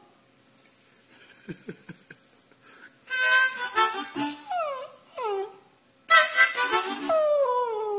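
Harmonica playing short bluesy chord phrases after about three seconds of near quiet, with a dog howling along in falling glides; one long, drawn-out howl starts about seven seconds in.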